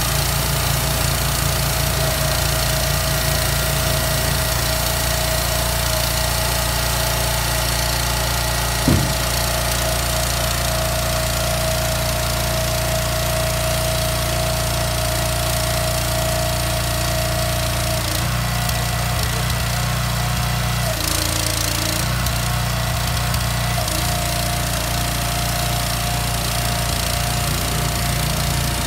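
Engine and hydraulic pump of a sidelifter truck running steadily under load, a low rumble with a constant whine, as the hydraulic arms lift a portable storage container. A single knock sounds about nine seconds in, and the whine and rumble shift in pitch for a few seconds about two-thirds of the way through.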